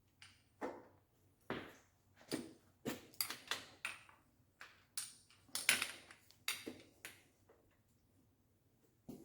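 Irregular series of sharp clicks and knocks from bicycle parts and tools being handled during work on the bike, about a dozen in the first seven seconds, then a pause and one more near the end.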